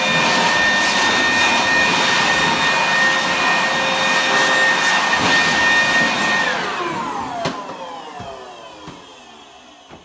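Corded electric leaf blower running at full speed, blowing dust off refrigerator coils: a steady whine over rushing air. It is switched off about six and a half seconds in and winds down, its whine falling in pitch as it fades.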